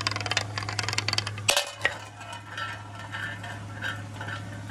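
A mini billiard ball clattering fast over the bumps of a wavy wooden marble-run track, then a sharp knock about a second and a half in as it drops into a funnel bowl. After that it rolls around the funnel with a whirring sound that swells and fades a few times a second.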